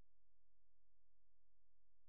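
Near silence: a dead, unchanging quiet with no sound events.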